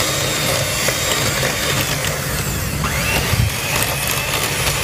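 Electric stand mixer running steadily, its beater churning brownie batter as an egg is beaten in.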